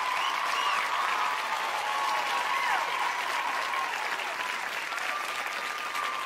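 A large crowd applauding and cheering, with scattered whistles rising and falling over the clapping.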